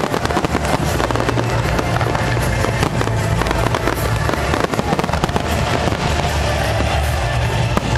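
Fireworks display going off continuously: rapid crackling and popping with a low booming underneath, and music playing along.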